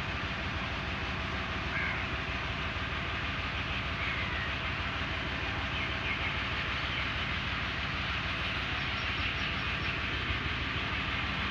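A tractor running steadily while it drives a PTO-powered rotary field implement: the spinning drive shaft and gearbox, with a dense, even mechanical noise and a strong low rumble.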